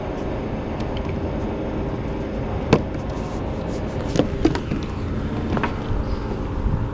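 Steady low rumble with a faint engine-like hum, broken by a few sharp clicks and taps from a fishing rod and line being handled. The loudest click comes a little under three seconds in.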